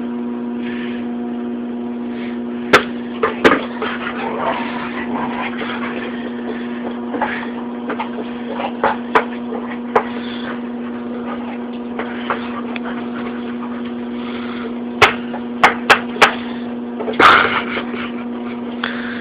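A basketball knocking and bouncing on a hard floor while a dog plays with it: scattered sharp thuds, including a quick run of four bounces about fifteen seconds in and a louder scuffle just after. A steady electrical hum runs underneath throughout.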